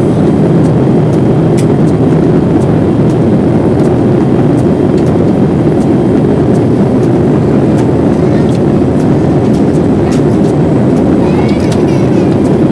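Steady cabin roar inside a Boeing 787-8 next to the wing during descent: its GE GEnx engines and the rushing airflow make a loud, even, deep noise.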